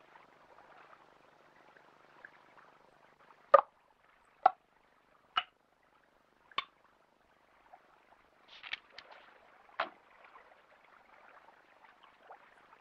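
Short, sharp clicks in a quiet pause: four about a second apart, then a few more close together later on.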